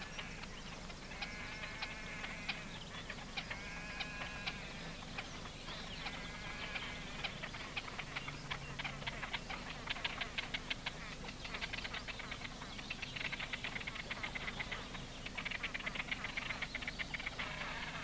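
Great crested grebes calling during their courtship display. A few drawn-out nasal calls come in the first seconds, then a long run of fast clicking with further nasal calls.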